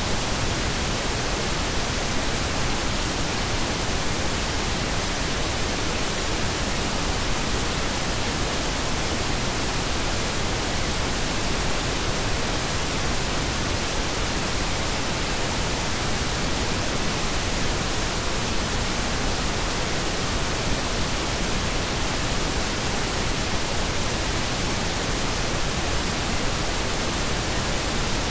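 Steady, unbroken pink noise: an even hiss at a constant level, with no changes or events.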